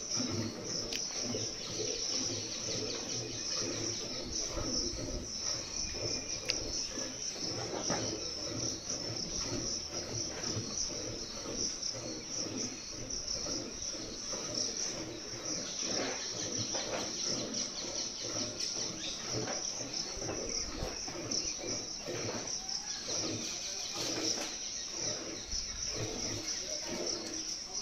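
Milk squirting from a cow's teats into a steel pail as it is milked by hand: a quick, steady run of squirts. A steady high-pitched drone sounds throughout, louder than the squirts.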